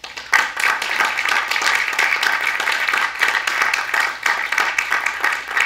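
Audience applauding: many hands clapping together, beginning abruptly a moment in and keeping up steadily.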